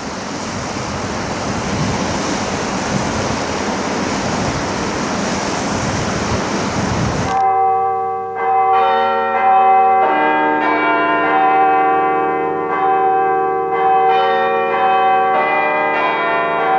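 Steady rush of water pouring through a hydroelectric dam's spillway. It cuts off sharply about seven seconds in, giving way to a set of Orthodox chapel bells in a small belfry ringing, several bells of different pitch struck in a quick repeating pattern and left to ring on.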